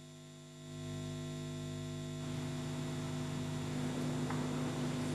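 Steady electrical mains hum with a faint hiss on the sound system's audio feed, growing louder about a second in and again a little over two seconds in.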